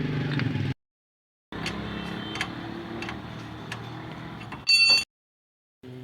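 2007 Honda City running with a low hum and irregular clicks, the axle noise the car has. The sound cuts out twice, and a short bright electronic beep near the end is the loudest sound.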